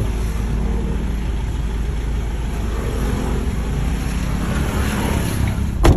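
Steady low rumble of a running vehicle, with wind on the microphone, and a single sharp click or knock near the end.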